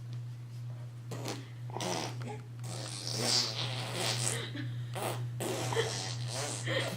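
A baby making short breathy noises, spluttering raspberries and small grunts, with rustling between them. A steady low hum runs underneath.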